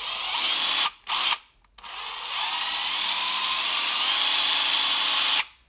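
Hart 20V brushed impact driver spinning with no load on its variable-speed trigger. It gives a short run, a brief blip, then a longer run of about four seconds whose motor pitch climbs slowly as the trigger is squeezed further, stopping just before the end.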